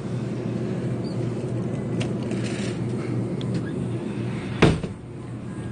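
Steady low electrical hum of a convenience store's refrigerated drinks cooler, with one loud knock against it about four and a half seconds in.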